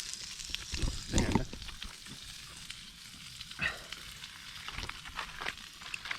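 Food frying in a pan over a camp fire or stove, a steady sizzle full of small crackling pops, with a couple of knocks around a second in.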